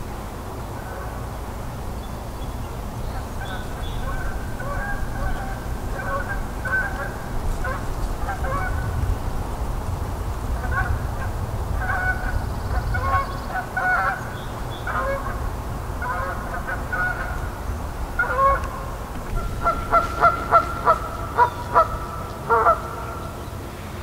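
Geese honking off and on, several short honks at a time, ending in a quick series of about six loud honks, roughly two a second, near the end.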